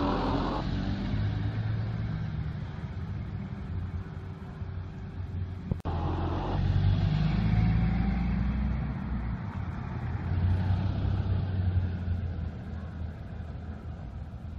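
Car engine hum and road noise from a moving car, the engine pitch rising and falling as it drives. There is a brief cut-out about six seconds in.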